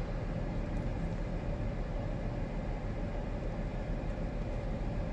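Steady low rumble and hum of an idling car, with a faint constant tone over it.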